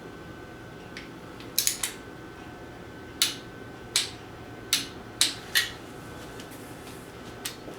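Sharp metallic clicks and clinks of hand tools, about ten of them at uneven intervals, some in quick pairs and triples, as steel tools and sockets are handled while bolting down an engine timing cover.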